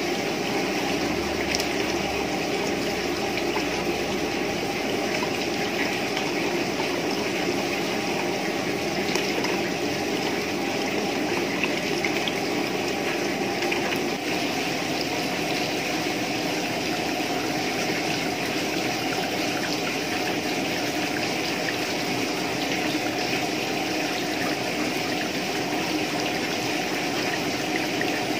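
Freshly distilled rice spirit running in thin streams from the still outlet pipes into plastic jugs: a steady trickling of liquid.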